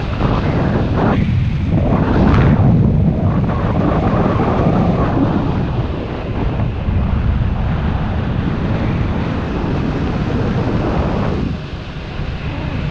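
Airflow of a paraglider in flight buffeting the camera microphone: a loud, steady rumbling wind noise that dips briefly near the end.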